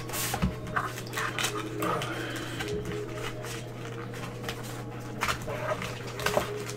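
Cardboard trading-card box and its foil-wrapped packs being handled and opened: irregular rustling, crinkling and tapping, over a steady electrical hum.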